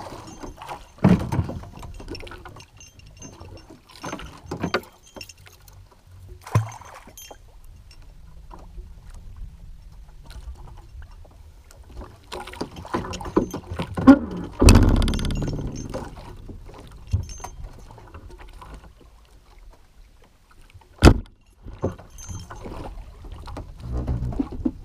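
Scattered knocks and bumps on a small wooden outrigger boat as a fisherman handles his catch and hand line, over water lapping against the hull and wind. There is a longer rushing burst around the middle, and the single sharpest knock comes near the end.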